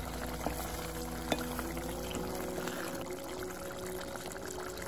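Pot of pork curry bubbling and sizzling as freshly added water comes up to the boil on a gas stove, with two sharp clicks in the first second and a half and a wooden spoon stirring near the end.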